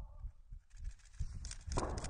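Long March 2D rocket's first-stage engines igniting on the pad: a low, uneven rumble with scattered thumps that builds into a loud crackling roar near the end.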